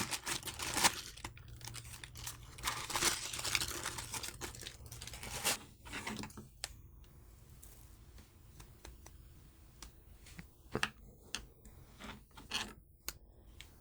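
Hands handling art supplies and their packaging: paper and plastic rustling and crinkling, busiest in the first few seconds, then scattered light clicks and taps.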